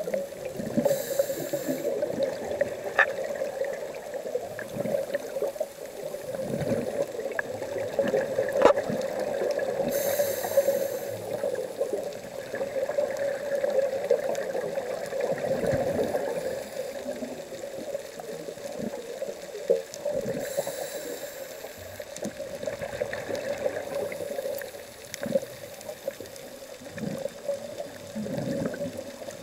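Underwater sound of a scuba diver's exhaled air bubbles rising from the regulator, heard as hissing, bubbling spells about every ten seconds, over a steady hum with a few sharp clicks.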